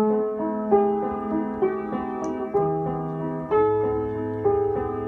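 Instrumental song introduction played on a piano-toned keyboard: a melody note struck about once a second over held bass notes that change a few times.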